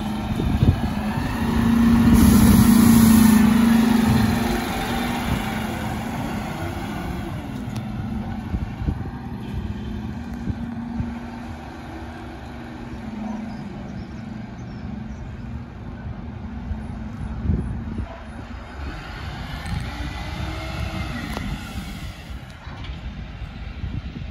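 Dennis Elite 6 refuse collection lorry driving away, its engine hum loudest about two to four seconds in as it pulls off, then easing; it rises again near the end as the lorry passes by.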